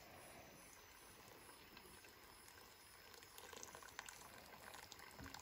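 Faint trickle of hot water poured onto coffee grounds in a filter cone over a thermos, a little louder from about three seconds in.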